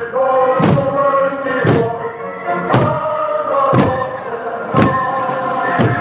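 Marching Korean buk barrel drums struck together with sticks in a slow, steady beat, about one stroke a second, six strokes in all. Many voices sing a song over the drumming.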